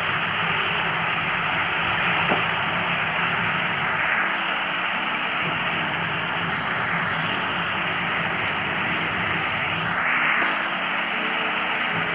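Pok choy, green beans and carrots sizzling steadily in a wok, with a light tap about two seconds in.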